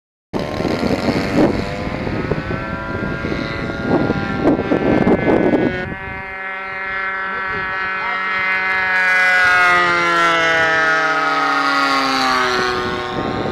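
Engine of a radio-controlled model biplane running hard, rough and gusty for the first few seconds, then a steady buzzing drone that slides slowly lower in pitch as the plane flies past and away.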